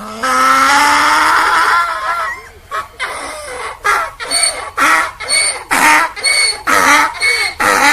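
Donkey braying: a long, slowly rising first note of about two seconds, then a rapid run of short, alternating hee-haw notes, about two to three a second.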